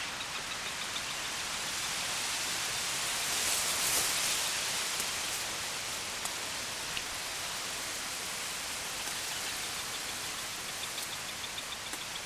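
Steady rushing hiss of outdoor noise that swells about three to five seconds in, with faint rapid high ticking in the last second or so.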